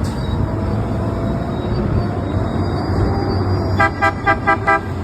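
A vehicle horn tapped five times in quick succession, short even beeps over the steady rumble of passing traffic.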